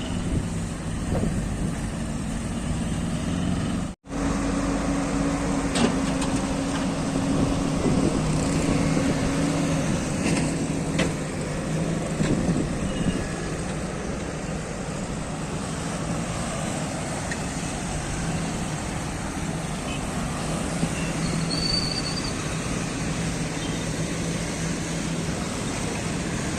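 Road traffic: the engines of cars and trucks run and pass in a continuous din. The sound cuts out for an instant about four seconds in.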